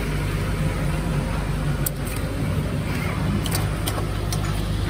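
Steady low mechanical hum of the workshop, with a few short sharp clicks as the orange high-voltage connectors and cables on the Tesla Model 3's battery pack are worked loose by hand.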